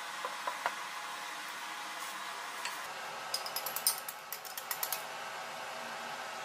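Steady whir of an induction cooker's cooling fan. A few light knocks of a wooden spatula against the pot come in the first second, then from about three seconds in a quick run of sharp clinks and scrapes as a kitchen knife scrapes beaten egg out of a small glass bowl.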